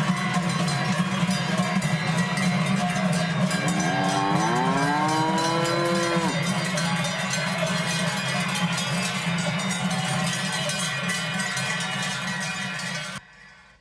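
Many cowbells clanging over a steady low hum, with a cow mooing once a few seconds in, its call rising and then held. The sound cuts off sharply about a second before the end.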